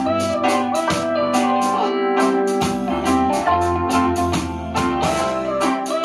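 Music playing through a Tronsmart T7 Lite Bluetooth speaker as a sound test, set to a custom EQ with the treble and low bass boosted: a song with a steady beat and a bass line.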